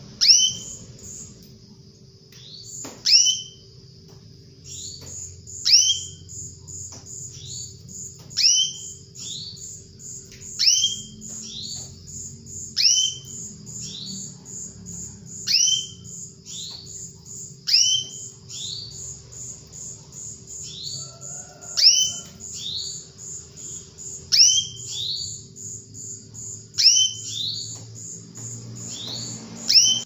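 Female canary calling: a sharp note that sweeps downward, often followed at once by a softer second one, repeated every two to three seconds over a fast, high, steady ticking.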